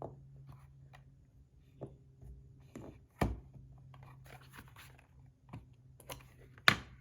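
Handling noises as a metal fidget spinner and a scale are set out: a few light clicks and knocks, the sharpest about three seconds in and near the end, over a steady low hum.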